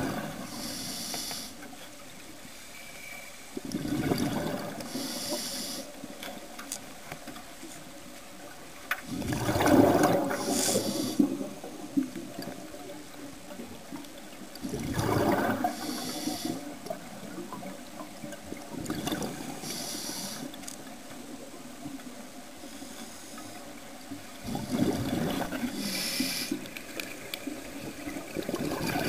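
Scuba diver breathing through a regulator underwater: a hiss on each inhale and a rush of bubbles on each exhale, about one breath every five seconds.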